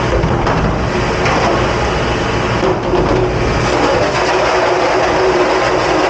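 Commercial pre-rinse spray nozzle blasting water onto a sheet pan and the stainless steel dish counter: a loud, steady rushing hiss.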